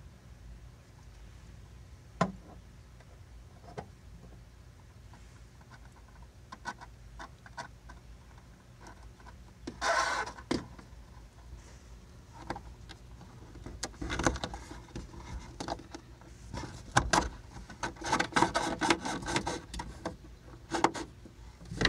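Scattered handling noises of hands working a bungee cord through a fibreglass rod holder: sharp clicks and taps, a short burst of rustling about ten seconds in, and a busier run of rustling and clicking over the last several seconds.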